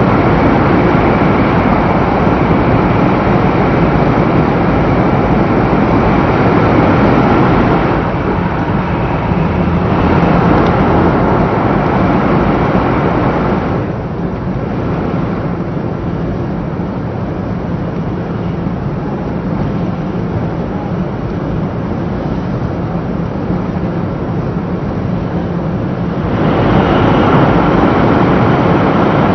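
500 series Shinkansen running at speed, heard from inside a passenger car: a loud, steady tunnel roar that drops to a softer running noise as the train comes out into the open about halfway through, then rises again sharply as it enters another tunnel a few seconds before the end.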